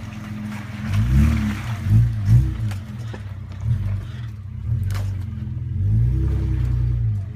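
Off-road vehicle's engine revving up and down repeatedly under load, rising again and holding higher near the end, with a few sharp knocks.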